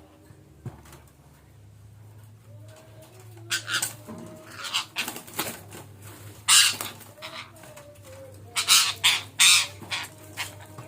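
Betet parakeets giving a series of harsh squawking calls, the loudest about six seconds in and again in a cluster near the end, over a steady low hum.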